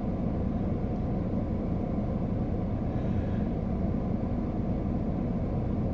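Steady low background rumble, even and unchanging, with no distinct clicks or knocks.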